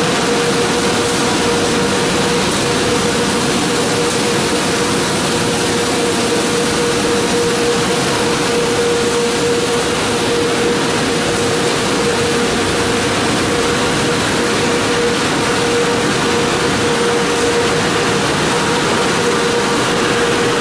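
Fish feed processing machinery running: a steady mechanical noise with a constant hum that holds unchanged throughout.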